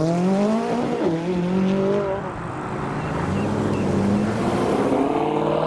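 McLaren sports car's twin-turbo V8 accelerating away, its pitch rising, with a gear change about a second in, then pulling on more steadily. Another car's engine comes in near the end.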